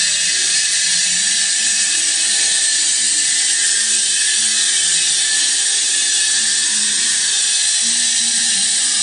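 Stone cutting machine's rotating tool grinding into a stone block, making grooves: a loud, steady, high-pitched hissing grind.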